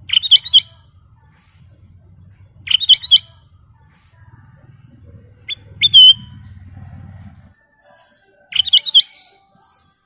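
A ruby-throated bulbul (kutilang emas) sings four short, quick warbling phrases about three seconds apart. A faint low hum runs underneath and stops a little past two-thirds of the way through.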